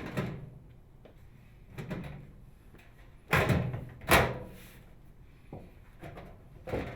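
The metal outer cabinet cover of a Frigidaire microwave oven is being fitted and knocked into place: scattered clunks and scrapes, the loudest a scrape about three seconds in and a sharp bang just after.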